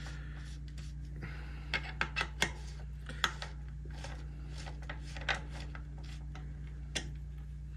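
Scattered light metallic clicks and rattles of hands threading in and tightening the bicycle's front wheel axle bolt, over a steady low hum.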